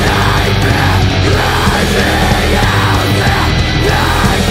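Loud heavy metal music playing steadily, with no break.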